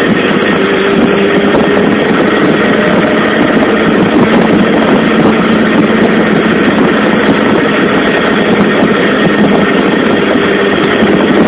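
Suzuki GSX-R SRAD inline-four motorcycle being ridden, its engine holding a steady note under a loud, even rush of wind and road noise.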